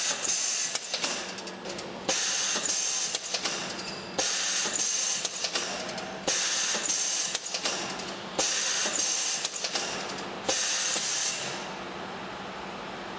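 Pneumatic rotary indexing table and pneumatic press cycling about every two seconds. Each cycle starts suddenly with clacks of the cylinders and valves and a loud hiss of exhausting compressed air, which fades over about a second. Near the end the cycling stops and only a steady, fainter air hiss remains.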